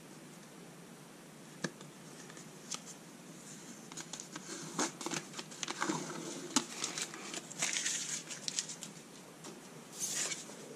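Protective paper being peeled off a thin ramp panel. A couple of small clicks as the edge is picked at, then several seconds of crinkling and tearing as the paper comes away, and a brief rustle near the end as the pieces are laid down.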